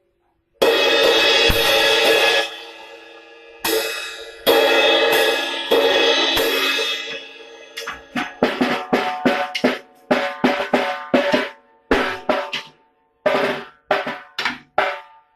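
Music led by a drum kit with cymbals and held notes, breaking into a run of short, abruptly cut hits from about halfway through.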